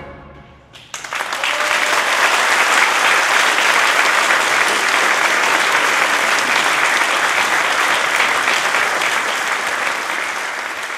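The last chord of a brass concert band dies away in the hall's reverberation, then about a second in the audience starts clapping all at once. The applause holds steady and full, easing slightly near the end.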